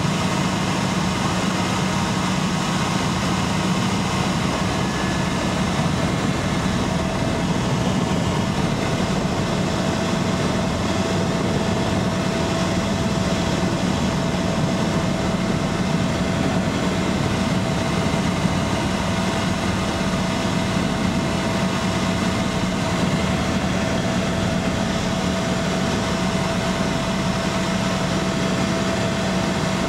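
Steady engine drone inside an aircraft cabin, an even hum with a constant low pitch and a fainter higher whine that never changes.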